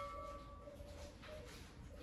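The fading tail of a metallic, bell-like ring dies away over the first second or so. After it there is only a faint background with a few soft low tones.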